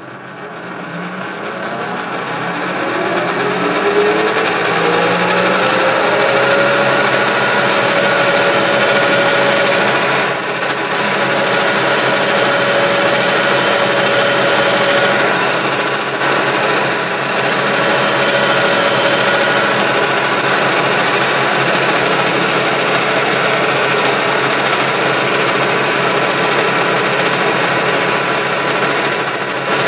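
Metal lathe spinning up, its whine rising in pitch over the first several seconds and then holding steady. It then runs at speed while a tool cuts a groove in the metal workpiece held in the chuck.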